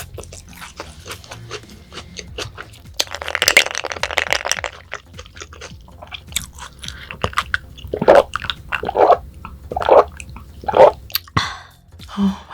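Close-miked chewing of raw yellowtail sashimi, with many small wet clicks throughout. About three seconds in there is a dense crunchy stretch lasting over a second, and near the end come four louder chews about a second apart.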